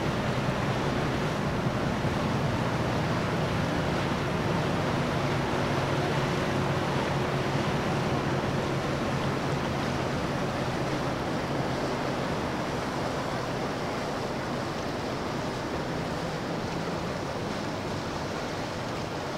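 Sunseeker motor yacht running past and away: a steady low engine hum under the rush of its wake and churned water, the hum fading in the second half as the boat moves off.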